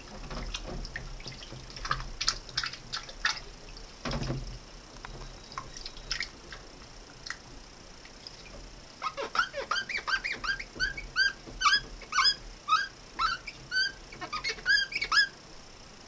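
Wet hands working a plastic ventilation-fan impeller in soapy water: splashing and light clicks with one knock about four seconds in, then from about nine seconds a run of short, high squeaks, about three a second, as fingers rub the degreased plastic blades.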